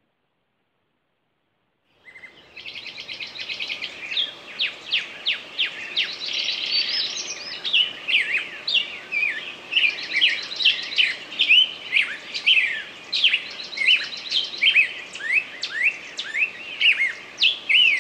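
Digital silence for about two seconds, then several songbirds chirping and trilling: quick, repeated chirps that sweep in pitch, with a rapid trill, over a faint steady background hiss.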